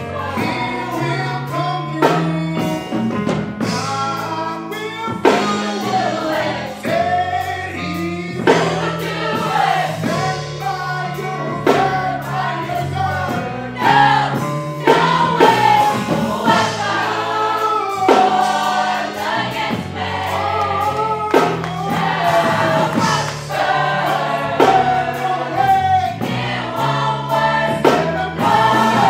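Gospel choir singing, with held low bass notes and a steady beat underneath.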